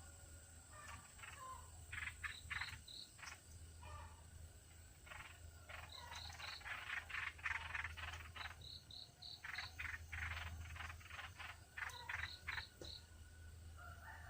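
Faint animal calls: bursts of rapid chattering notes, several ending in a run of three or four short high notes, repeating every few seconds over a low steady hum.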